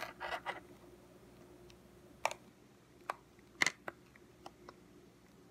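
Small ice pieces clicking and cracking as they are pushed out of the bubbles of a frozen silicone pop-it fidget toy. A scattering of short sharp clicks, a few close together at the start and then single ones, the loudest about two-thirds of the way through.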